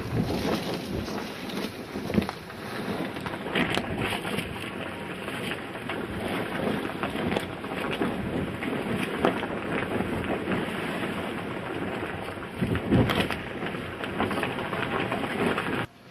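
Strong wind buffeting the camera microphone, a steady rushing roar that swells in several louder gusts, then cuts off suddenly near the end.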